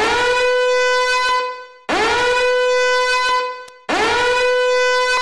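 Three long horn blasts, about two seconds apart. Each starts with a quick upward scoop in pitch, holds one steady, bright note, then fades.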